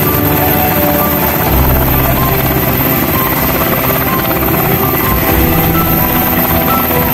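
Sikorsky UH-60L Black Hawk running with its rotor turning on the ground: the steady sound of its twin General Electric T700 turboshaft engines and four-blade main rotor, with background music over it.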